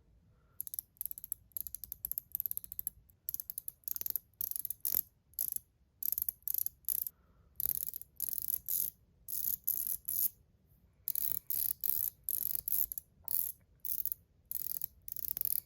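ACEdc ratchet ring spun in short bursts, each a rapid run of crisp ratcheting clicks from its spring-loaded ball detents. The ring is heard in turn set up with one, two and then three springs and balls, the tension rising as balls are added.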